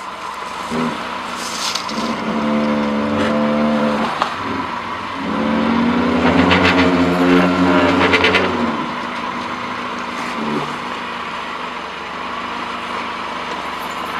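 Subaru Forester's engine revving hard in two pushes while crawling up a rock ledge. The second push is longer and louder, with tyres spinning and throwing grit and dirt; the engine then settles back to a lower steady run.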